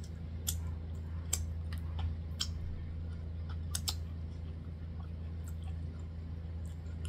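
Scattered wet mouth clicks and lip smacks from chewing corn on the cob and licking fingers, a dozen or so short sharp clicks over a steady low hum.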